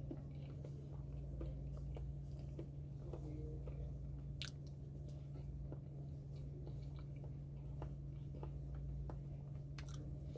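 A person biting and chewing banana close to the microphone: scattered small mouth clicks and smacks over a steady low hum.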